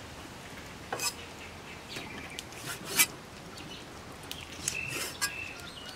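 A few irregular sharp knocks and scrapes of a cleaver cutting beef on a wooden chopping board, the loudest about three seconds in. Birds chirp in the background.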